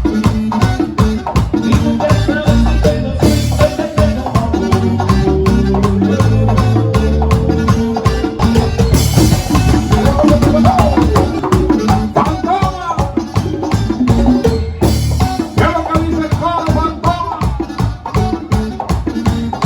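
Instrumental passage of a tropical dance band: a steady beat of drums and shaker over bass and melody.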